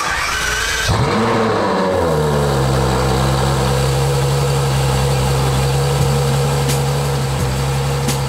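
Ferrari F12 TDF's naturally aspirated V12 being started: a brief starter whine, the engine catching about a second in with a flare of revs, then dropping back to a steady idle.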